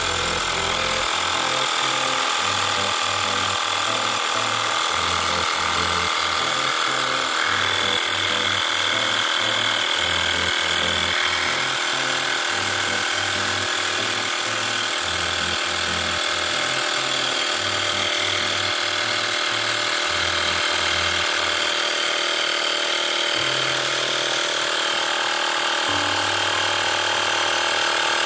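Homemade 12V electric air pump, a DC motor driving a small piston compressor, running steadily with a fast mechanical rattle while it inflates a motorcycle tyre through the hose. It cuts off suddenly at the very end as it is switched off.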